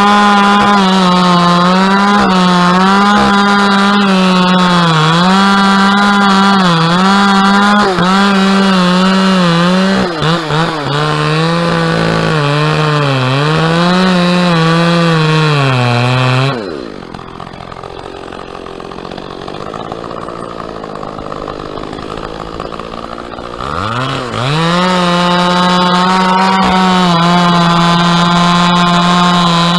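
Two-stroke chainsaw running at high revs, its pitch dipping and wavering as it bogs under load while cutting dead palm. About halfway through the engine drops to idle for several seconds, then revs back up to full throttle and holds steady.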